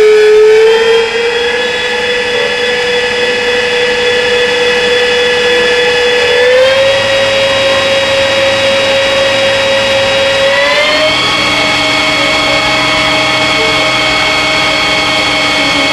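ACER E-Lathe's electronic variable-speed spindle drive running with a steady whine, stepping up in pitch three times as the spindle speed is raised.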